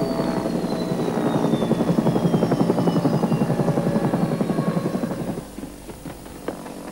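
Helicopter rotor chop, an even rhythmic beating, under a high turbine whine that falls steadily in pitch as the helicopter comes down to land. The sound drops away abruptly about five seconds in.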